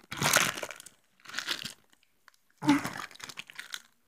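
Thin plastic toy packaging crinkling and tearing as it is ripped open by hand, in three bursts.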